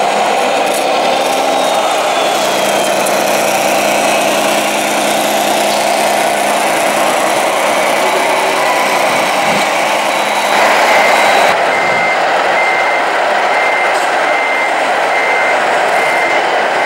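A model truck's electronic sound unit playing a steady diesel engine drone, with a reversing alarm beeping evenly from about two-thirds of the way in.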